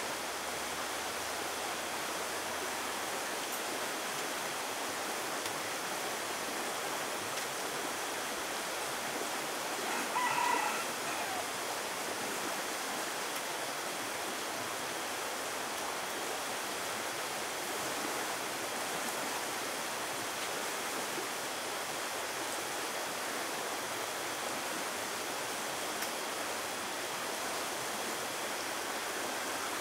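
Rooster crowing once, about ten seconds in, over a steady rushing hiss of outdoor background noise.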